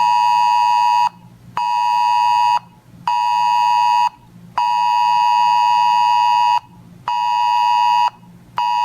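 Weather radio alert tone: a steady electronic beep repeating in a pattern of one long beep of about two seconds followed by two shorter beeps of about a second each, signalling an incoming weather alert.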